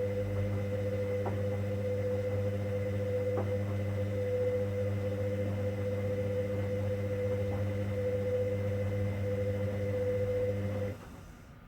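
Hoover Dynamic Next washing machine's motor turning the drum during the main wash of a 90 °C cotton cycle: a steady humming whine with a few faint clicks, which stops abruptly about eleven seconds in as the drum pauses.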